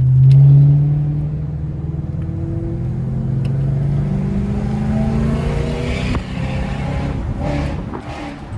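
Lexus GS430's 4.3-litre V8 with the catalytic converters removed, loud at first, then accelerating with its exhaust note rising steadily in pitch for several seconds before a gear change about six seconds in, after which it pulls on more steadily.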